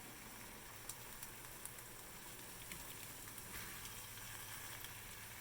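Chicken pieces frying in a large pan of curry base: a faint, steady sizzle with a few small crackles.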